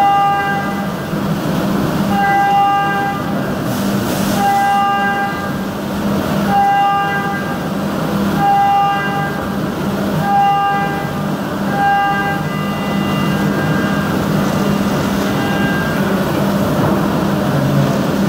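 CNC machining centre's spindle at 12,000 rpm driving a 16 mm four-flute carbide end mill through aluminium under flood coolant: a steady spindle hum and coolant hiss, with a high singing whine from the flutes that swells for about half a second roughly every two seconds as the cutter loads up on each pass of the Waveform roughing path. The whine pulses fade out over the last few seconds.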